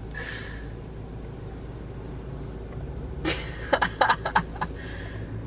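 Steady low hum of a car's cabin, engine and road noise. About three seconds in comes a brief vocal sound.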